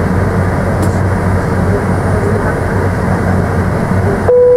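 Steady cabin noise of a Boeing 757-200 taxiing, the idling jet engines heard from inside the cabin as a constant hum. Near the end the background noise cuts out and a short steady tone sounds.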